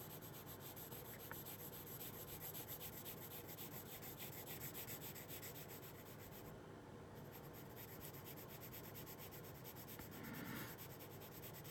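A colored pencil lightly shading drawing paper: a steady run of quick, faint back-and-forth strokes of the pencil tip scratching over the paper, laying down a light base coat.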